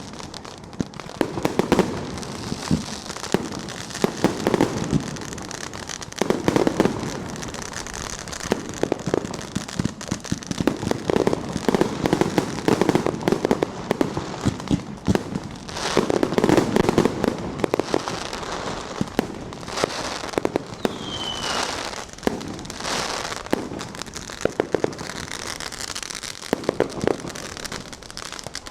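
Fireworks and firecrackers going off all around in a dense, unbroken barrage: rapid crackling bangs with louder clusters of blasts every few seconds. A brief high whistle sounds about three quarters through.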